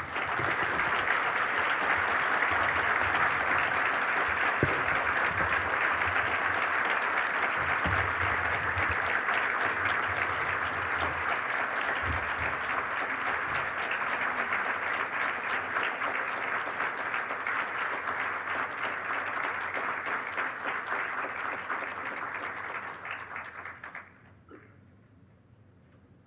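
Audience applauding at the close of a talk: dense, steady clapping that dies away about 24 seconds in.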